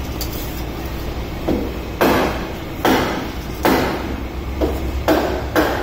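About five sharp knocks on hard plastic, roughly a second apart and starting about two seconds in: hands working a scooter's plastic air filter box loose.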